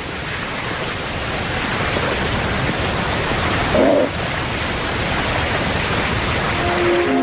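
Fast, meltwater-swollen river water rushing over falls, a steady full hiss that grows slightly louder. A brief lower sound cuts in about four seconds in.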